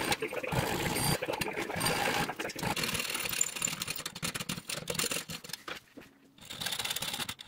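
Hand filing and sawing on a small metal bulb socket clamped in a vise: a needle file rasps in rapid strokes, then a bare hacksaw blade saws the small groove that will lock the bulb's lugs. There is a short pause about six seconds in.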